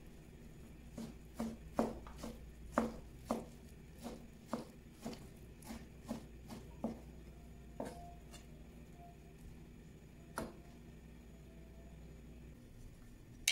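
Chef's knife chopping blanched spinach on a plastic cutting board: about twenty irregular knife strikes, roughly two a second, which stop about ten seconds in.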